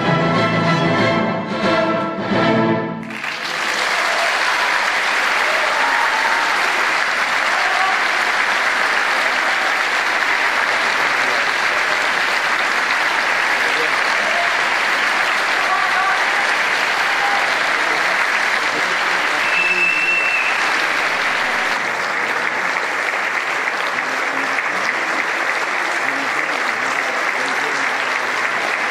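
A symphony orchestra plays the last short chords of a piece, ending about three seconds in, then the audience breaks into steady applause.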